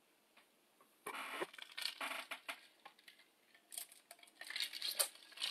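A person handling a cup and drinking from it. After about a second of near silence come scattered soft knocks and rustles, then drinking sounds near the end.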